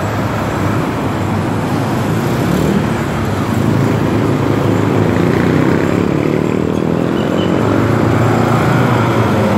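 Busy city street traffic: cars, buses and motorcycles running and passing close by in a steady wash of engine and tyre noise, with a low engine drone growing stronger near the end.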